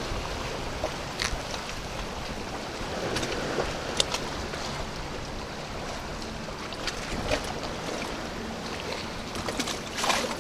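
Steady wash of sea water lapping and splashing, with a few short clicks and knocks scattered through it.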